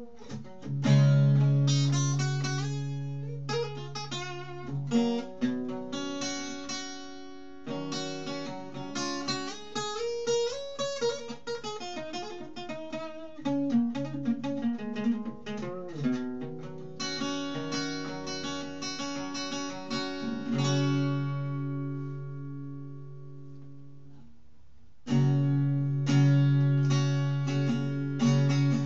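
Steel-string acoustic guitar played with picked and strummed chords. About twenty seconds in, one chord is left to ring out and fade for several seconds, then strumming starts again strongly.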